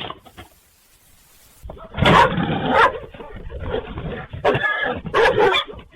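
An animal vocalizing in several loud, rough calls, starting about two seconds in after a short quiet spell.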